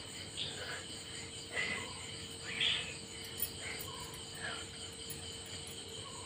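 Faint background of steady, high-pitched insect chirring, with a few faint, brief sounds scattered through it.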